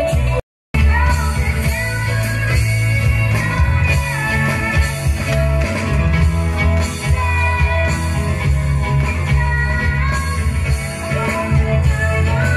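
Live band playing a pop-rock song with a singer over loud bass and drums, guitar and keyboards. The sound drops out completely for a moment about half a second in.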